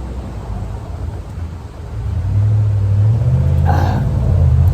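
Low rumble of a nearby motor vehicle's engine, growing louder and rising slightly in pitch about two seconds in.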